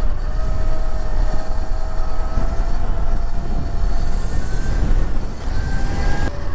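Razor electric bike's upgraded motor whining at riding speed, its pitch sagging slightly and then rising near the end, over heavy wind rumble on the microphone.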